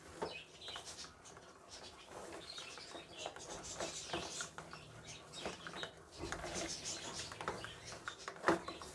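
Metal spoon stirring cocoa powder and flour into milk in a ceramic mug: quick, irregular clinks and scrapes of the spoon against the mug's sides, with one sharper clink near the end.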